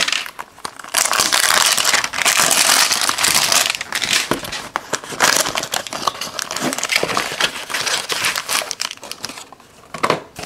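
Foil-wrapped trading-card packs crinkling and rustling as they are pulled from a cardboard box and handled, with small clicks and scrapes; it dies down near the end.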